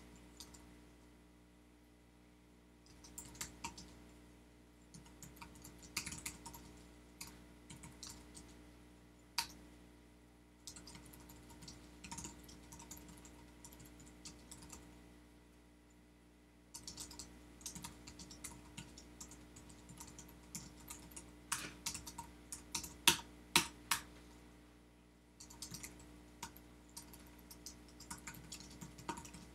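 Typing on a computer keyboard, starting about three seconds in, in quick runs of keystrokes broken by short pauses. A steady low hum sits underneath.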